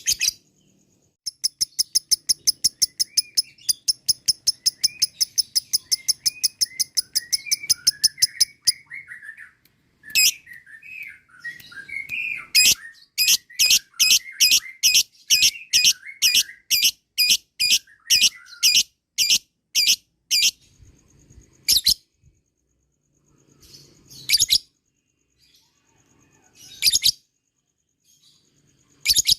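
Lovebird chattering in long, shrill runs of repeated notes, the 'ngekek' call. First comes a fast string at about five notes a second lasting several seconds, then after a short pause a louder string at about two notes a second, with softer twittering beneath. A few separate calls follow near the end.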